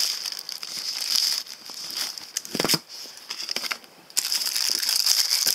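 Crinkling and rustling of the camera's paper and plastic packaging wrap as it is handled and pulled open, with a soft knock about two and a half seconds in, over a steady high hiss.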